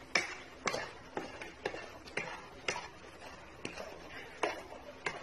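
Wooden spatula stirring and scraping a thick milk-powder peda mixture in a kadhai, knocking against the pan about twice a second as the mixture is cooked down and thickens.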